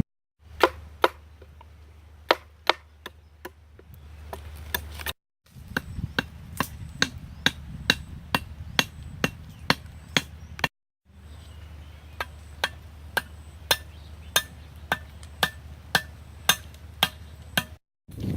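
Repeated chopping: a blade striking on wood at roughly two strokes a second, in three runs separated by brief breaks, over a low steady background hum.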